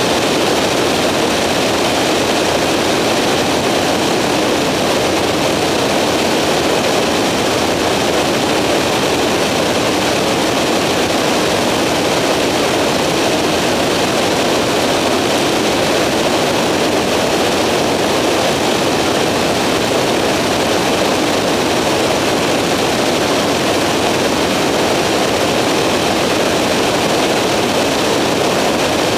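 Skyranger microlight's engine and propeller running at steady cruise, heard from on board as an even, unchanging rushing drone.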